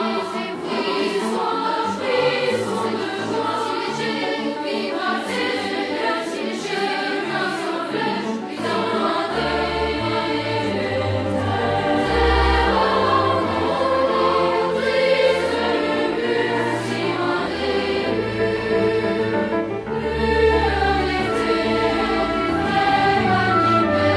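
Background music with a choir singing; a low bass part comes in about ten seconds in.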